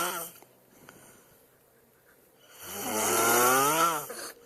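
A man snoring loudly: one snore trails off in the first moment, then after about two seconds of quiet comes another long snore whose pitch rises and then falls before it breaks off.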